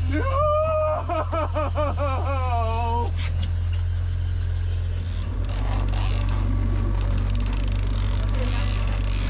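Boat motor running steadily at trolling speed, a constant low hum. For the first three seconds a person gives a drawn-out, wavering vocal sound over it.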